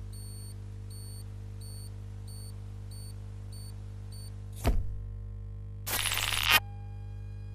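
Horror-film sound design: a steady low drone with faint, short high beeps repeating about every 0.7 seconds. Near five seconds in comes a sharp hit, then a loud rush of noise that swells for about half a second and cuts off suddenly.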